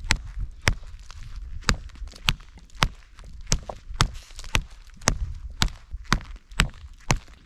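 Hultafors OK4 Scandi-grind bushcraft knife chopping into a hard, dry fallen log: sharp blade strikes on wood at an even pace of about two a second.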